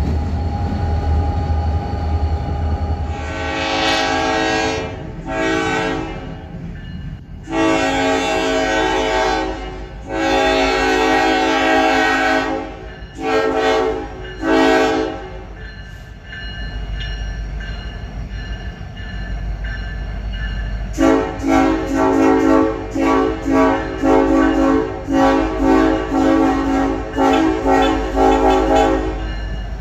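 EMD SD70ACe diesel locomotive's air horn sounding a chord. It gives six blasts, mostly long, in the first half, then a rapid string of short toots at about two a second near the end, over the low rumble of the moving train.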